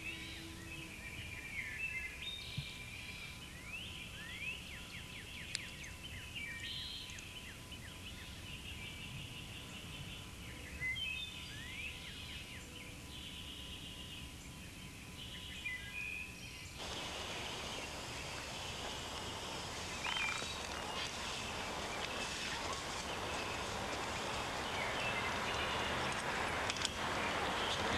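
Small birds chirping, with many short rising and falling calls. About two-thirds of the way in, the sound changes suddenly to a steady rushing noise that slowly grows louder.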